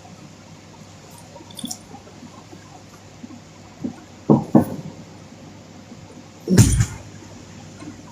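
A sleeping woman's open-mouth snoring: two short snores a little after four seconds in, then a louder, fuller one near the end, with quiet breathing in between.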